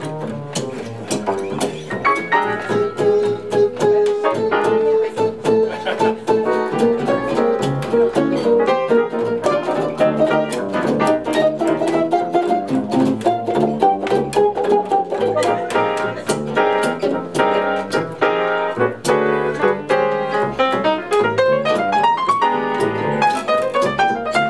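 Live jazz trio of archtop guitar, plucked double bass and piano playing, with guitar lines over the walking bass and a quick rising run near the end.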